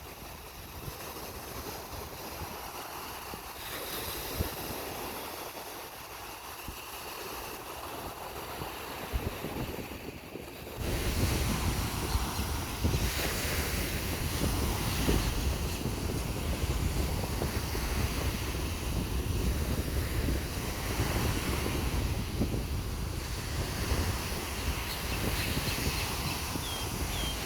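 Ocean surf washing onto a beach. About eleven seconds in the sound jumps louder, with wind buffeting the microphone as a heavy low rumble.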